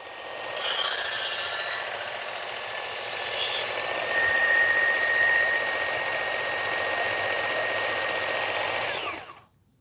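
Work Sharp powered belt sharpener running with a fine X4 belt. A knife blade is drawn lightly across the belt for about three seconds, giving a loud high hiss of grinding, to finish the edge. The motor runs on steadily and then switches off near the end, winding down to silence.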